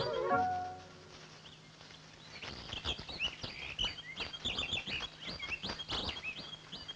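The tail of a song's music stops within the first second. Birds then chirp in short repeated calls over a soft, irregular patter of clicks.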